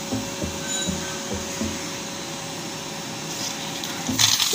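Background music with a low beat. About four seconds in, a sudden burst of compressed air hisses out as the air compressor's ball valve is opened into a hose.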